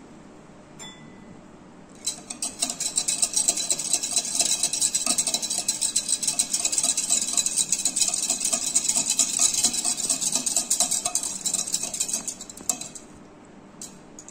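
Metal spoon stirring buttermilk fast in a plastic jug, a rapid run of clinks and scrapes against the jug's side. It starts about two seconds in and stops about a second before the end.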